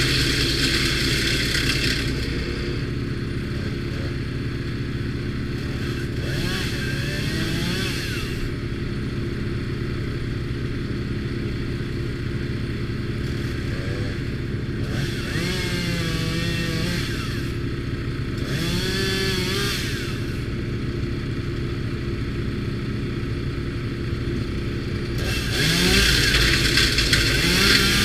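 Timber Wolf TW13/75G wood chipper running steadily on its 13 hp petrol engine. Branches are chipped in about five bursts of shredding noise, the longest near the end, and the engine note wavers under the load each time.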